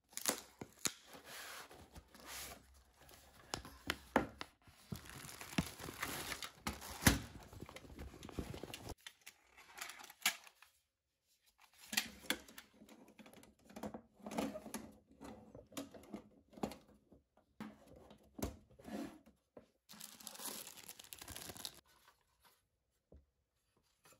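Close handling noise: tearing and crinkling, with many scattered sharp clicks and knocks and a pause of about two seconds near the middle.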